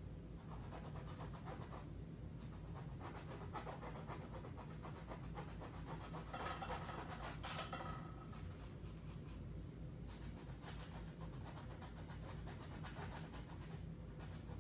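Stiff bristle brush scrubbing nearly dry acrylic paint onto a canvas in short strokes: a faint, continuous scratchy rubbing, a little busier around the middle.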